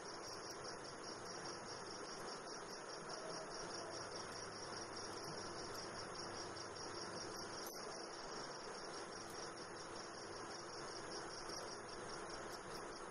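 A cricket chirping steadily: a high note pulsing fast and evenly, over a faint hiss.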